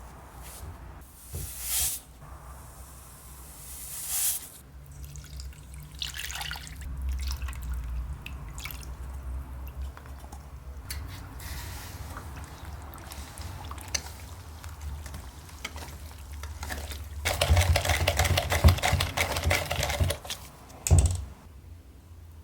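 Water splashing and dripping with scattered handling knocks, growing louder and busier for a few seconds near the end.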